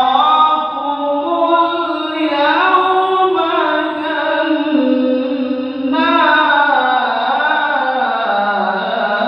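Adult male qari reciting the Quran in melodic tilawah style, holding long notes with ornamented turns. A new phrase begins about six seconds in, starting high and falling.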